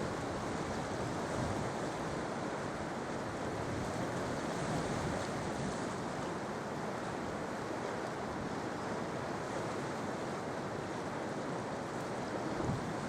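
Sea surf rolling in and washing onto the shore, a steady rush of water that swells gently every few seconds, with one slightly heavier wave breaking near the end.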